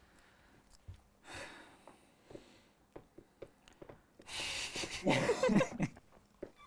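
A man bursting into breathy laughter about four seconds in, after a few seconds of quiet with small clicks and a faint breath.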